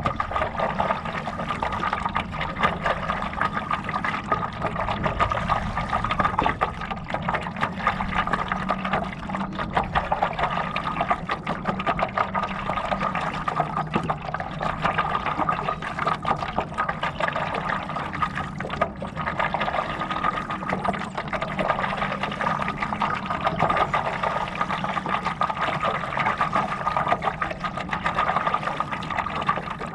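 Water splashing and trickling continuously around a stand-up paddleboard under way, in a dense run of small irregular splashes, with a steady tone underneath.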